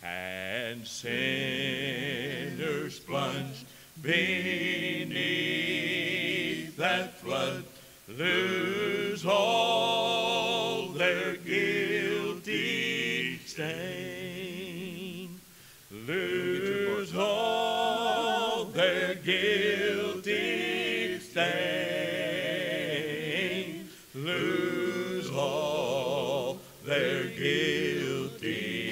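A mixed vocal quartet, one woman and three men, singing a hymn a cappella in harmony. The phrases are broken by short breaths, with long notes held in vibrato.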